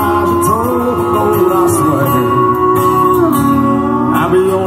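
Live country band playing: strummed acoustic guitar with keyboard, under a lead melody of held notes that slide up and down.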